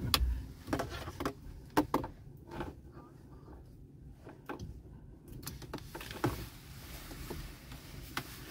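Scattered small clicks and taps of hands handling a dashcam and its power cord, with a quieter gap around the middle.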